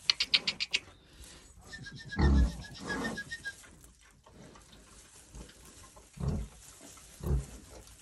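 Day-old piglets grunting, a handful of short grunts spaced a second or so apart, after a quick rattle of short high sounds at the very start.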